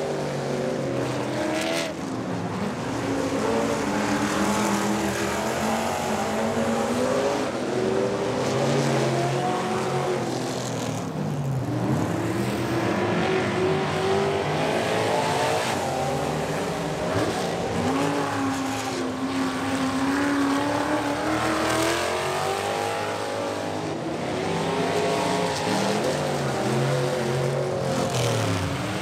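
Dirt-track race trucks' engines running hard around the oval, several at once, their pitch rising and falling as they accelerate and lift off for the turns.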